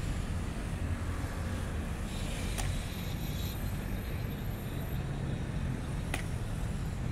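Steady low rumble of road traffic, with two sharp taps about three and a half seconds apart: the marching Evzones' hobnailed tsarouchia shoes striking the marble.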